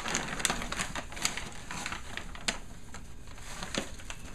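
Wrapping paper and a cardboard gift box being handled and torn open, with irregular sharp paper crackles and rustling.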